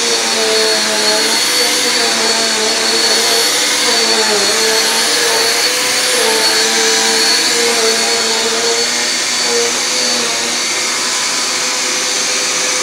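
Vacuum cleaner running steadily with a high whine, its motor tone wavering slightly in pitch.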